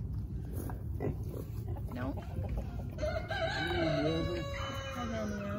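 Rooster crowing: one long, wavering crow that starts about halfway through.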